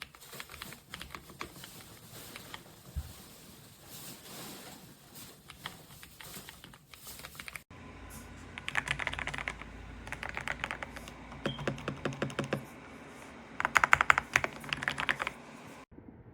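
Typing on an EPOMAKER Ajazz AK820 Pro gasket-mount mechanical keyboard: rapid key clicks, softer for the first half, then louder runs of fast keystrokes in bursts.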